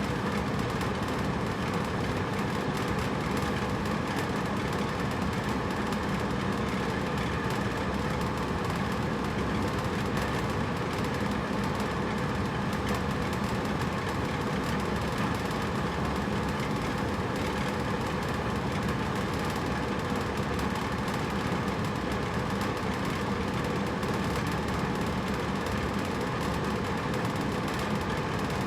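Hotel room air conditioner running steadily: an even hum and whoosh of the fan and compressor with no change in level.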